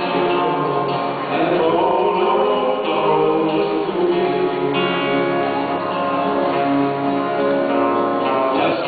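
Two male voices singing a gospel duet with lead guitar accompaniment.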